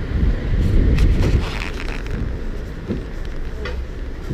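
Outdoor street noise: a steady low rumble with a few faint knocks.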